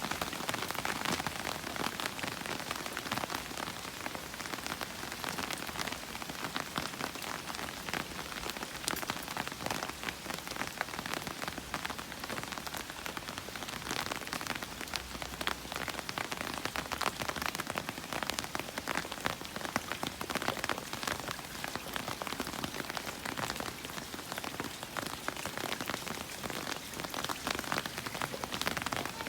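Heavy rain falling and pattering hard on outdoor surfaces, a steady dense hiss with many small drop impacts.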